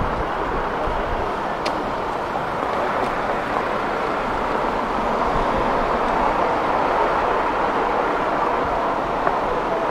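Steady street traffic noise, an even hum with no distinct passes.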